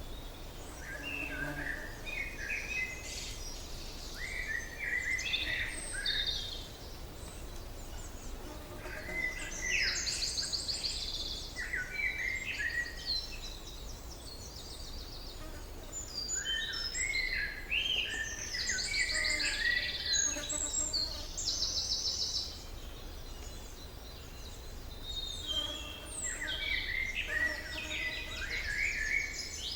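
Several songbirds singing in a forest dawn-chorus style mix: overlapping chirping phrases and fast buzzy trills that come in bouts with short lulls between them, over a steady low background rumble.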